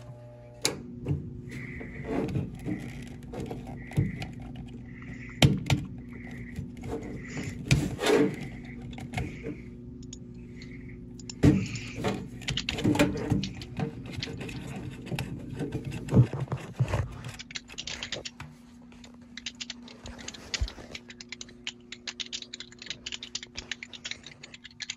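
Hands working inside a vending machine: clicks, knocks and scrapes of cable connectors being unplugged and parts being handled, over a steady low hum. A soft short beep repeats about once a second through the first half, and a run of rapid ticking comes near the end.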